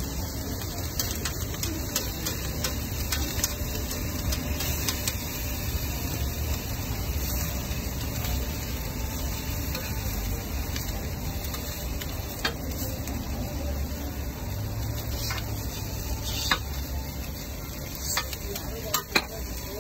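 Tteokgalbi patty, sausage and egg sizzling on a flat-top steel griddle while a metal spatula and tongs scrape and clack against the plate, with a few sharper clinks near the end.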